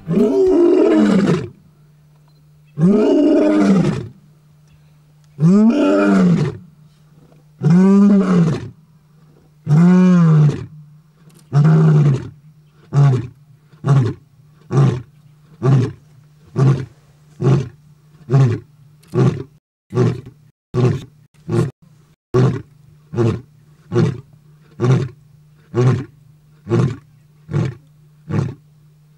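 Male African lion roaring: about six long roars a couple of seconds apart, each shorter than the last, then a long run of short grunts a little under one a second. This is the fading grunt series that ends a lion's roaring bout.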